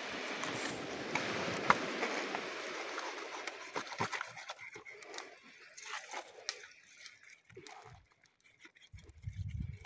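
Knife blade scraping the scales off a whole fish: a steady rough rasping for the first few seconds, then thinning to scattered scrapes and clicks.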